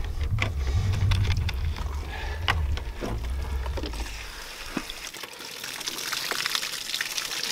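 Water pouring and splashing out of a shot plastic 2-litre soda bottle as it is tipped and opened, the hiss of the pour starting about five seconds in. Before that, a low rumble with scattered clicks and crackles of the plastic bottle being handled.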